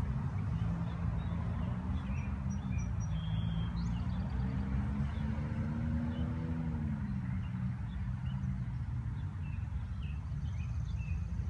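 A steady low engine hum whose pitch rises a little and falls back about two-thirds of the way through, with faint bird chirps scattered over it.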